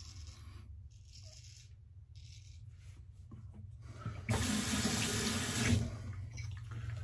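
A straight razor scrapes through lathered stubble in a few short, faint strokes. Then a tap runs into a sink for about a second and a half, starting about four seconds in.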